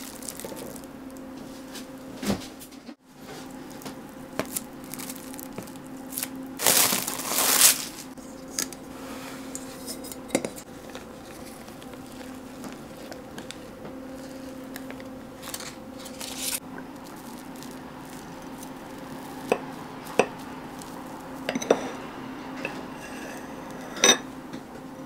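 Kitchen handling sounds: baking paper rustling, and sharp clinks of a ceramic plate and knife on a wooden counter, over a steady low hum.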